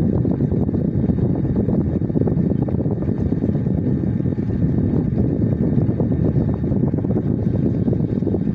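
A loud, steady low rumble of noise that does not change.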